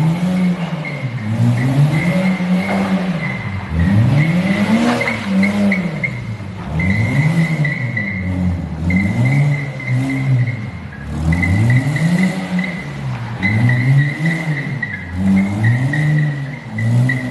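A Porsche's engine revving up and down over and over, about once every second and a half, while the tyres squeal in a drift. The squeal is a steady high note that breaks off and returns several times.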